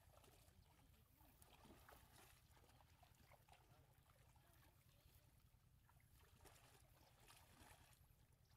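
Near silence: a faint steady low hum with faint sloshing of shallow water as a net is waded through it.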